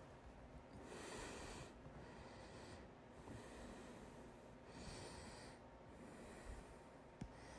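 Faint breathing of a person with hiccups, a soft breath about every two seconds between hiccups, with one faint click near the end.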